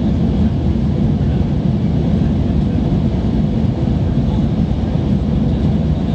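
Airliner cabin noise in flight: a steady low rumble of the engines and the air rushing past the fuselage, heard from inside the cabin.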